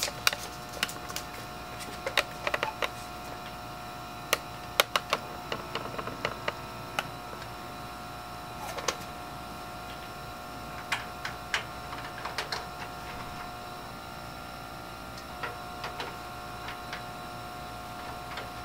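Steady hum of a biosafety cabinet's blower. Over it come scattered sharp clicks and taps from an electric pipette controller and the plastic pipette and culture flask being handled.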